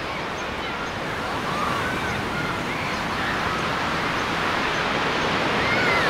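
Sea surf washing up a shallow beach, a steady rush of foaming water that grows a little louder towards the end, with a few short high cries over it.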